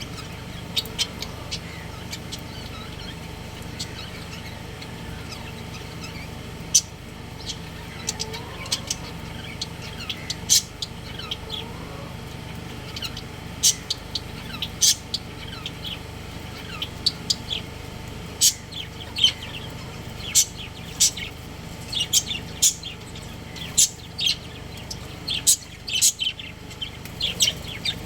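Budgerigars chirping: many short, sharp high-pitched chirps, coming thicker in the second half, over a steady low hum.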